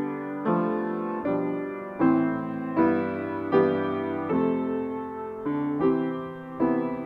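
Piano playing slow, held chords, a new chord struck roughly every three-quarters of a second and left to ring.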